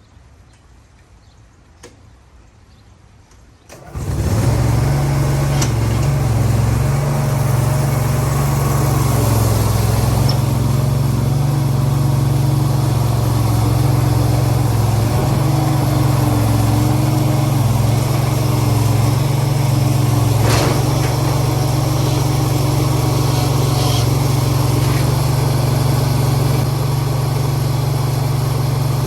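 An engine comes in suddenly about four seconds in and then runs steadily at an even speed to the end.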